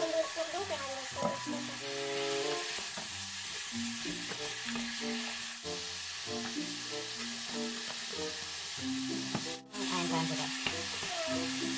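Food sizzling in a hot pan while it is stirred with a spatula, the steady frying hiss running throughout. Background music plays underneath, and the sound cuts out for a moment about ten seconds in.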